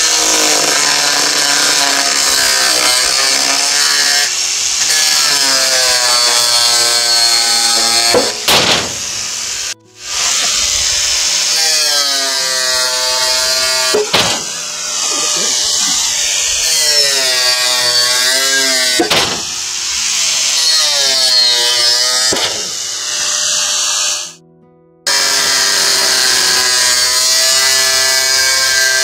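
Corded electric angle grinder cutting through the steel hoops of a whiskey barrel, its whine sagging and recovering in pitch as the disc bites. It cuts out briefly twice, and a few sharp clanks ring out between cuts.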